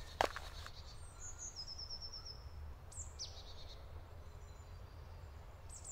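Small birds calling in woodland: a short high trill of quick repeated notes, then a single high falling call about three seconds in and another near the end, over a steady low rumble. One knock sounds just after the start.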